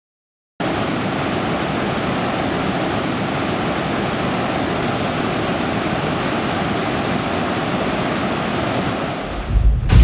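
Steady rush of a waterfall, cutting in abruptly just after the start. Near the end a deep, louder rumble of thunder swells in.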